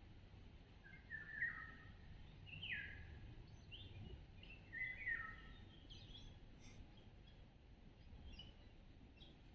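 Songbirds calling: a few short, falling chirped phrases about one to five seconds in, then fainter, higher chirps, over a faint low rumble.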